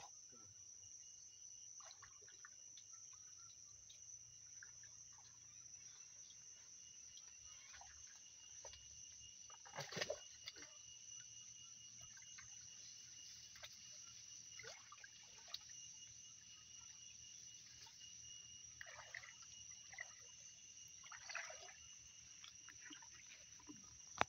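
Faint water splashing and trickling as someone wades through a shallow stream carrying a bucket, with a louder splash about ten seconds in and a few more near the end. Behind it, insects keep up a steady high-pitched chirring.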